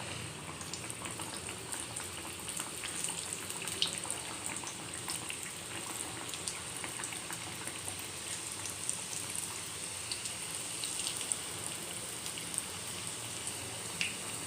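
Stuffed chicken-and-carrot chapati rolls shallow-frying in a little oil on a hot tava over a low flame: a steady soft sizzle with many scattered small crackles.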